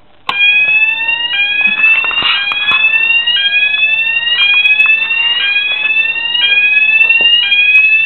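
Electronic fire alarm sounder (a Roshni sounder) switched on about a third of a second in. It then sounds a loud repeating rising sweep tone, roughly one sweep a second, as part of an interconnected home fire alarm system.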